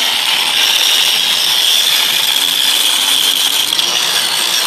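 Angle grinder with a metal cut-off wheel running steadily while cutting into the steel shell of a concrete-filled support column, a loud, even, high-pitched grinding whine.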